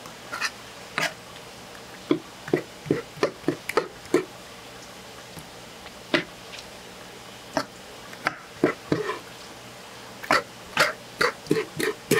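Short, irregular wet clicks and knocks in clusters, the sound of cuttlefish being handled and cut on a board.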